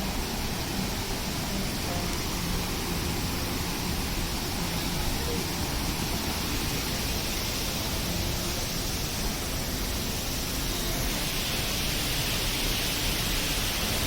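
Steady rushing roar of a waterfall's falling water, growing hissier about eleven seconds in.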